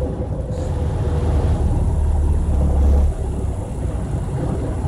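A semi truck's diesel engine and road noise heard inside the cab: a heavy low rumble that builds and then drops off suddenly about three seconds in.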